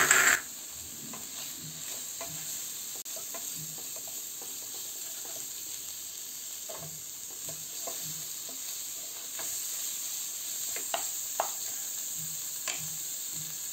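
Wooden spatula stirring and scraping a frying onion-and-spice paste around a non-stick frying pan, over a steady sizzle of hot oil. The scrapes come irregularly, with a few sharper ones near the end.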